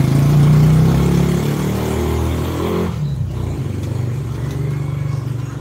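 A motor vehicle engine running close by, its pitch rising a little, then dropping about three seconds in to a lower, steady hum.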